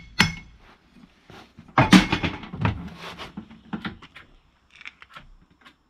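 A last metal tap on the loose battery terminal clamp, then about two seconds in a loud clunk followed by a few lighter knocks and rattles.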